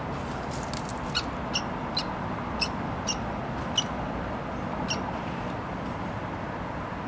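Common kestrel nestlings begging for food as the parent arrives with prey: a string of about eight short, high, thin squeaks spread over the first five seconds, over a steady background hum.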